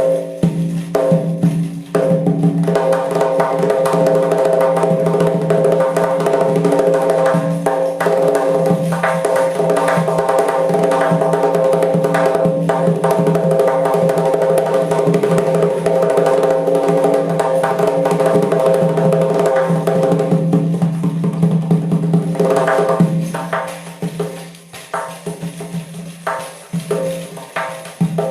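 Doira, the Central Asian frame drum with metal rings, played in a rapid, continuous roll with a steady ringing tone, breaking into separate, more spaced strokes near the end.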